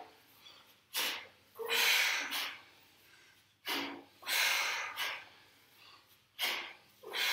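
A person's heavy breathing from exercise exertion: three breaths, each a short sharp inhale followed by a longer, forceful exhale, roughly every two and a half to three seconds.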